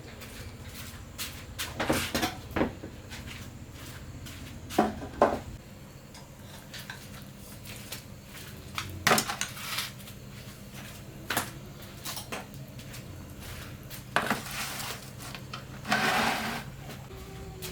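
Scattered clinks and knocks of dishes and utensils, a separate knock every second or two, with a longer scrape near the end. A low steady hum runs underneath for the first few seconds.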